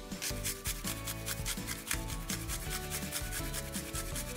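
A garlic clove being grated on a small stainless steel hand grater: quick, even rasping strokes, several a second.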